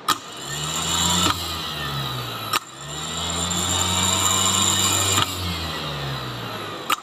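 A 12 V Tata truck starter motor spinning free on the bench, powered by a lead held to its terminal. It runs with a hum that rises and falls in pitch over a high whine, and the run is broken by sharp clicks about three times as the contact is made and broken.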